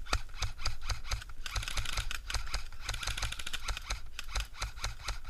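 Airsoft gunfire: a rapid, irregular run of sharp clicks and snaps, several a second, with low thumps underneath.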